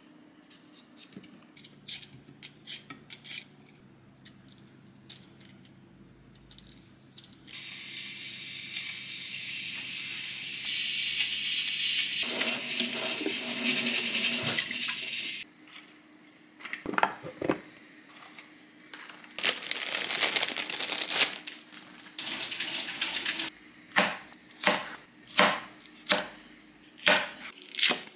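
Kitchen prep: a knife cutting into potatoes with small scattered clicks, then tap water running into a sink as a peeled potato is rinsed under it. Near the end a chef's knife chops green chili peppers and green onion on a cutting board in even strokes, about one and a half a second.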